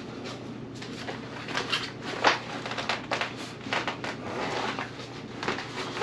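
Handling noise of a nylon insulated carry bag being worked around a portable chest refrigerator: uneven rustling and clicking, with one sharp knock about two seconds in.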